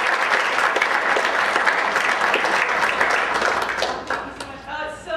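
Church congregation applauding, a dense patter of many hands clapping that dies away about four seconds in.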